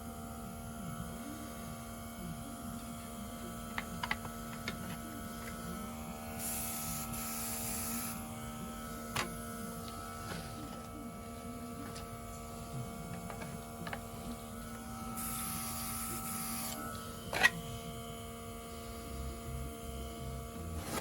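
Nail-art airbrush spraying paint in two short hissing bursts of about a second and a half each, over a steady electrical hum. A few light clicks, with one sharp click just after the second burst.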